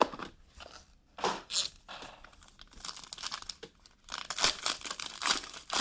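Packaging being torn open and crinkled by hand as a sealed box of trading cards is unwrapped, in irregular rustling, crackling bursts.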